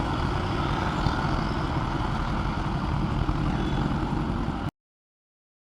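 Steady motorcycle engine and road rumble picked up by a helmet-mounted mic, with no change in pitch, then cutting off abruptly to dead silence about four and a half seconds in as the recording stops.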